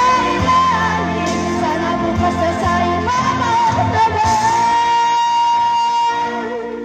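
Woman singing karaoke into a microphone over a backing track, amplified through the karaoke speaker. She holds one long high note from about four seconds in, then the voice stops and the music fades out near the end.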